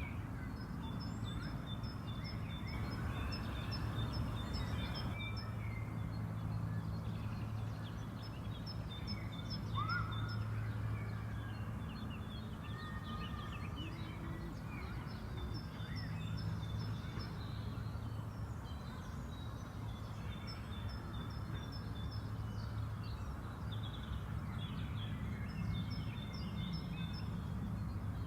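Spring park ambience: songbirds singing, one repeating a high, rapid chirping phrase about every five seconds, with scattered calls in between, over a steady low background rumble.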